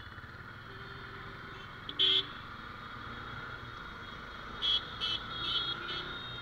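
Motorcycle riding through traffic, its engine running steadily under wind noise on a helmet-mounted camera. Vehicle horns honk: one loud honk about two seconds in and several quick toots near the end.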